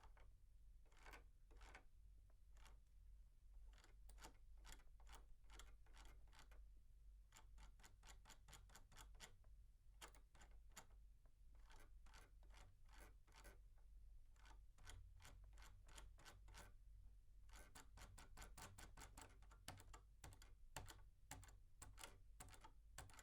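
Computer mouse scroll wheel being turned, its notches giving faint, rapid clicks in runs of several a second with short pauses between runs, heard from a medium distance.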